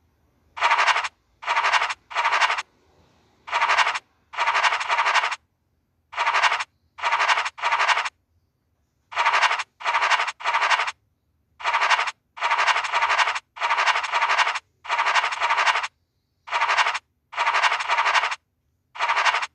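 Scratching sound effect of the FDJ Illiko '€Cash' online scratch game: short bursts of scratching noise, each about half a second to a second long, one for each star scratched off to reveal a number, coming in irregular groups of two or three with brief silences between.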